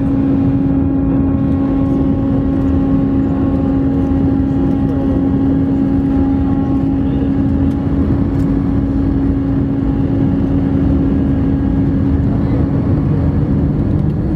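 Cabin noise of an Airbus A319 airliner heard from a window seat over the wing during descent: a steady rumble of jet engines and airflow with a steady hum tone. Near the end the hum fades and a lower hum comes in.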